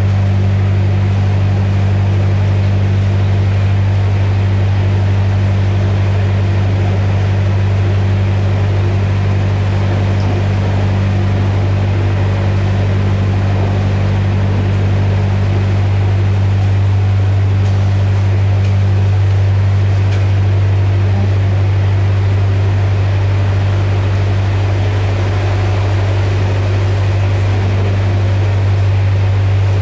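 Narrowboat's diesel engine running steadily as the boat cruises, a constant low drone heard inside a brick canal tunnel.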